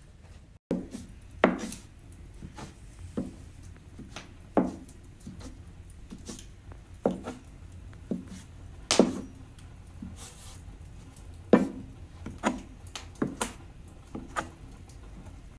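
A metal dough scraper chopping a stiff dough into pieces on a wooden board: about a dozen sharp knocks at irregular intervals as the blade strikes through to the wood.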